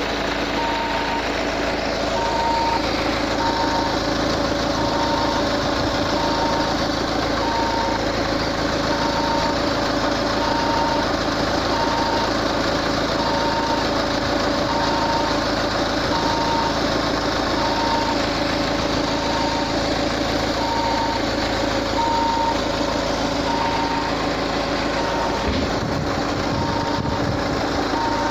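Steady, even beeping from the engine bay of a Peugeot 508, one high beep about every second, over the engine idling.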